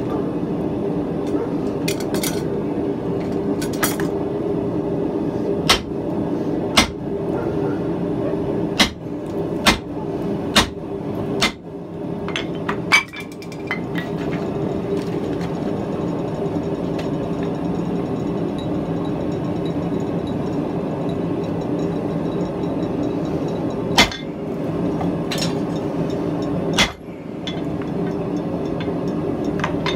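Scattered, irregular metal-on-metal strikes and clinks of a blacksmith's hammer on hot steel at the anvil, several close together in the first half and a few more near the end, over a steady low hum.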